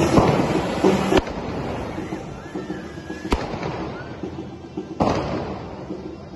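Correfoc fireworks (carretilles) spraying sparks with a loud, continuous hissing rush. The sound fades after about a second and jumps back louder abruptly near the end.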